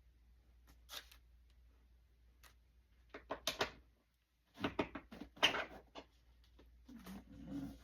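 Hands handling parts at a workbench during model-plane assembly: scattered small clicks and taps, with a busier stretch of rustling and knocking around the middle.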